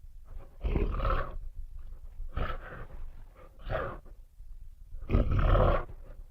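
Monster creature sound effect built from processed animal recordings: four separate roars with short gaps between them, the longest and loudest about five seconds in.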